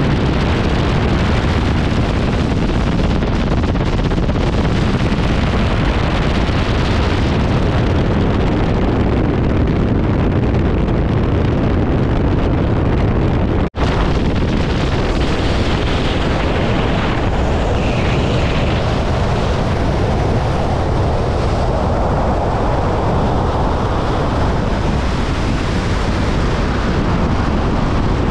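Strong wind buffeting the camera microphone: a loud, steady rush of noise that drops out for an instant about halfway through.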